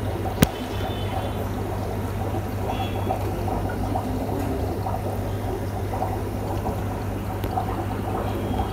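Aquarium water pouring and bubbling steadily, over a steady low hum, with one sharp click about half a second in.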